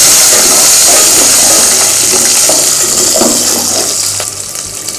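Peeled shallots frying in hot oil with fennel and cumin seeds: a loud sizzling hiss that gradually dies down and fades out near the end.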